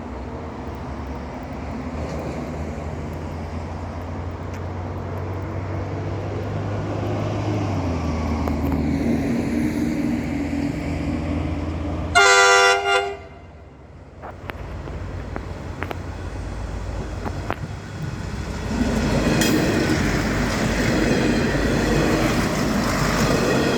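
Two-carriage diesel railcar approaching with its engine running steadily, sounding its horn in one short, loud blast about twelve seconds in as a warning for the private crossings it is about to cross. In the last few seconds it passes close by, its wheels rumbling and clattering on the rails.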